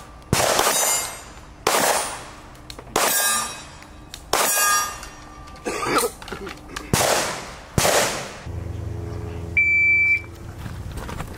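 Handgun shots, six in all, spaced about a second and a half apart, with a brief gap and a few small clicks in the middle. After them comes a steady hum, and near the end a short, high electronic beep.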